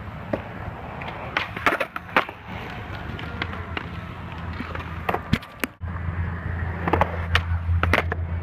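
Skateboard wheels rolling on concrete with a steady low rumble, broken by sharp clacks of boards hitting the concrete. The rolling gets louder about two-thirds of the way in.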